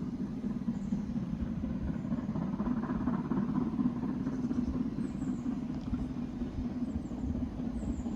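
Diesel train engine running with a steady low hum and rumble.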